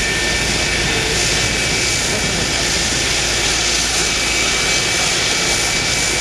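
F-104 Starfighter's General Electric J79 turbojet running at taxi power: a steady jet roar with a high whine held on one pitch.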